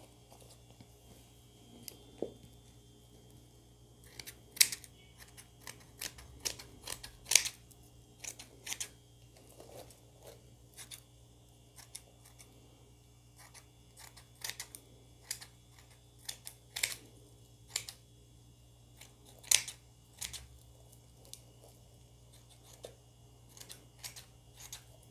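Scissors snipping through embroidered net fabric in short, irregular cuts, beginning about four seconds in, with pauses between small groups of snips.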